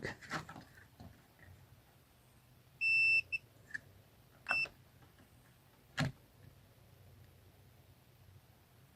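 Digital multimeter beeping as its probes test the legs of a power MOSFET on a TV power-supply board: one steady high beep about three seconds in, a short blip right after, and another brief beep about a second later, then a sharp click near six seconds. The beep marks a short between two of the MOSFET's legs: the power IC has failed.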